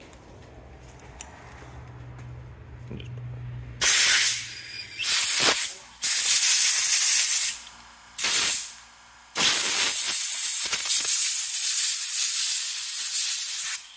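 Compressed-air blow gun hissing in several short blasts and then one long blast of about four and a half seconds, blowing out the AR-15 front sight post after reaming.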